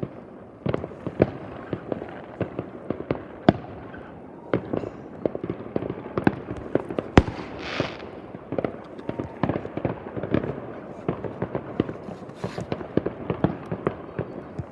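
New Year's fireworks going off in a steady, dense barrage of bangs and pops, several a second and overlapping. The loudest bang comes about seven seconds in, with a brief hiss just after it.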